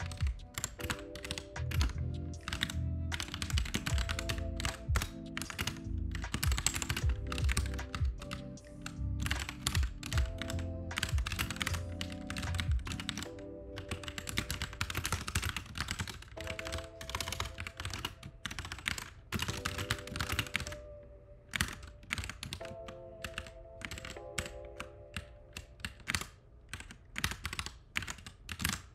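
Computer keyboard typing in quick runs of keystrokes with short pauses, over lofi background music with sustained chords and a bass line.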